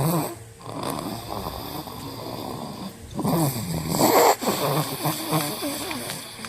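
A toddler about two and a half years old snoring in his sleep: a run of snores with short breaks between breaths.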